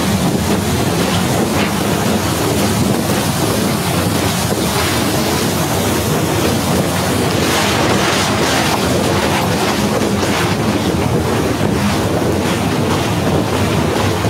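Snowstorm wind blowing across a phone's microphone: a loud, steady rushing noise that swells slightly in places.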